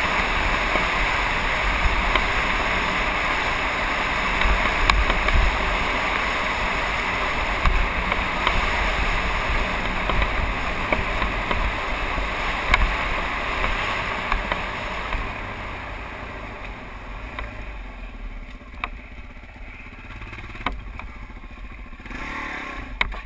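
Trail bike engine running as it is ridden over a dirt track, with wind rushing over the microphone. About fifteen seconds in the bike slows and the sound drops, and a few sharp knocks come through near the end as it crosses rough ground.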